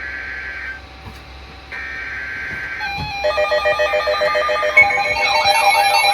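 Two harsh, buzzing bursts of digital data tones, each about a second long, from a NOAA Weather Radio: the SAME header that opens an Emergency Alert System message. From about halfway in, a layered electronic ringing of several tones builds up and gets louder, with warbling notes near the end.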